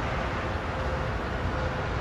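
Steady low rumble of highway traffic, with tractor-trailers crossing the overpass, and a faint steady hum.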